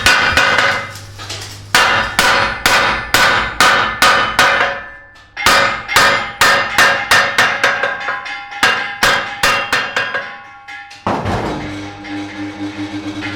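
Hammer striking the steel of a truck wheel rim in a steady run of ringing metal blows, about two to three a second. The run breaks twice briefly, and the blows stop about ten seconds in.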